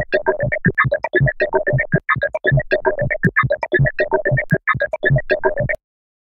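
Synthesizer jingle of rapid, short staccato notes repeated at an even pace. It cuts off abruptly near the end, leaving a brief silence.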